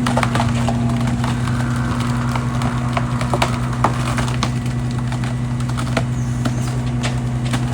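Large wood chipper running with a steady low drone, with irregular cracks and knocks as wood is broken up and fed through, the sharpest about three to four seconds in.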